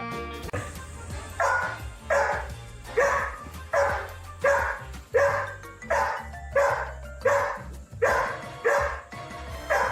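A dog barking about a dozen times in a steady rhythm, roughly one bark every 0.7 seconds, each bark falling in pitch. The barks sound over background music with a steady bass line.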